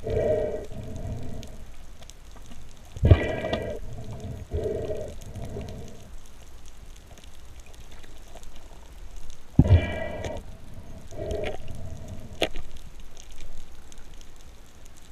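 Spearfisher breathing through a snorkel while hauling in a speared fish: a few long breaths several seconds apart, each with a hollow, ringing tone, and a short sharp tick near the end.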